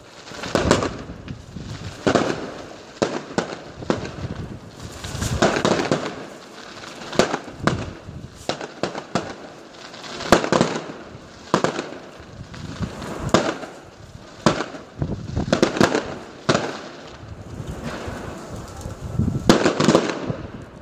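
Aerial fireworks bursting: an irregular series of sharp bangs, many in quick clusters, with crackling between the bursts.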